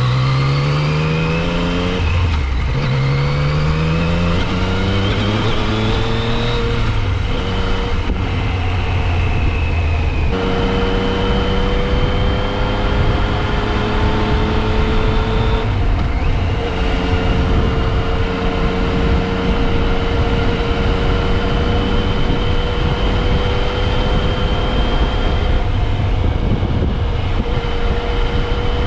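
Yamaha FJ-09's three-cylinder engine pulling hard and rising in pitch, with a gear change about two seconds in and more over the next several seconds, then running at a nearly steady cruising pitch with a couple of brief drops. Heavy wind rush underneath.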